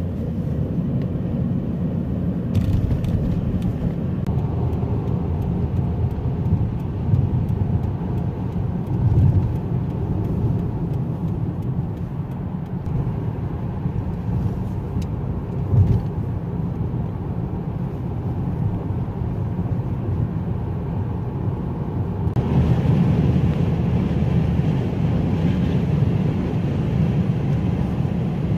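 Steady low rumble of a moving car's engine and tyres on the road, heard from inside the cabin. The noise shifts abruptly a few times, and grows a little louder about 22 seconds in.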